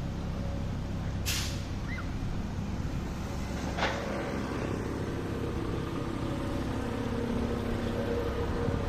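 Road traffic: vehicle engines running steadily, with a short hiss a little over a second in and another near four seconds in.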